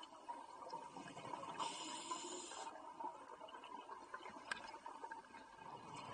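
Scuba diver's regulator exhaust underwater: one exhalation bubbles out with a hissing rush about a second and a half in and lasts about a second, over a faint steady hum.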